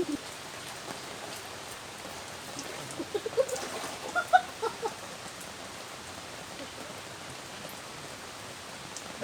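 Steady rain falling, an even patter throughout. A few short vocal sounds stand out over it between about three and five seconds in.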